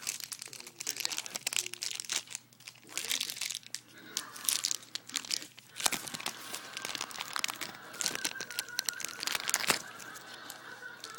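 Plastic packaging crinkling and rustling in quick, irregular bursts, with small hard clicks as the parts of a Beyblade top are handled.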